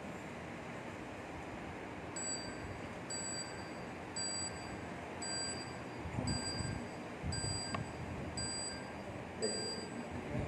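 A short electronic chime or beep repeating about once a second, starting about two seconds in, over a steady background hiss.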